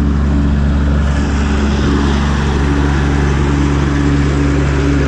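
Tractor engine running steadily under load while mowing grass with a disc mower, a loud continuous low hum.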